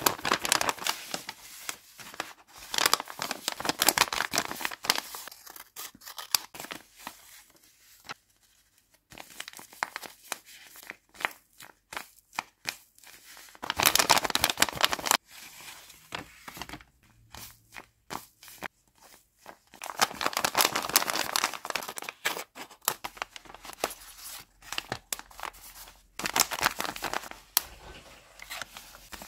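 Paper and clear tape crinkling and tearing as handmade taped paper blind bags are opened and handled, in loud bursts with quieter rustling and small taps between.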